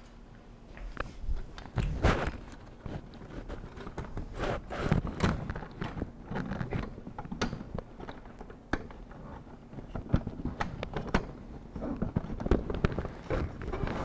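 Irregular clicks, knocks and rattles of a plastic adjuster arm being worked onto a KitchenAid dishwasher's wire upper rack, the rack shifting as it is handled.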